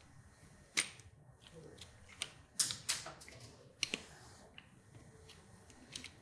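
Channellock diagonal cutters snipping as they trim away material at the edge of a motorcycle handlebar switch housing. They make several sharp snaps at irregular intervals.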